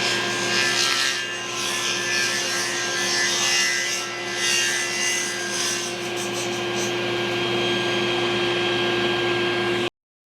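A steady machine hum with rubbing and scraping on wood over it, typical of power-tool work in a woodshop; it cuts off abruptly near the end.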